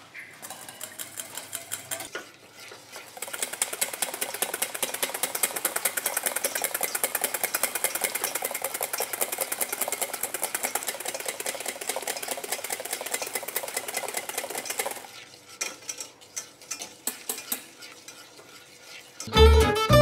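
Wire balloon whisk beating egg whites by hand in a stainless steel bowl: a fast, even clatter of wires against metal. It builds up over the first few seconds, runs steadily, then stops about three-quarters through, leaving a few scattered taps. Music starts just before the end.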